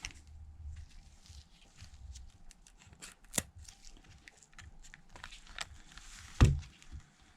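Small scattered clicks, taps and light scraping from handling the opened iPhone X and its screen, with a sharper tap about three and a half seconds in and a louder knock about six seconds in.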